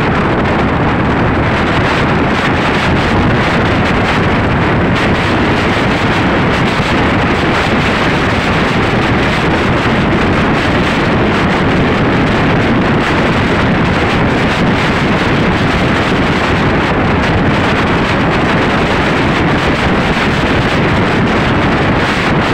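Loud, steady wind rush buffeting the phone's microphone while riding a motorcycle.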